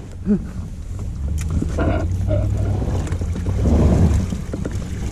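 Low, steady engine rumble that swells over the first four seconds and then eases off.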